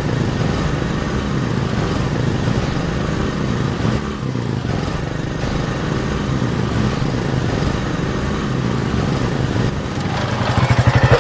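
Motorcycle engine running steadily; near the end it gets louder, with a quick, even putter.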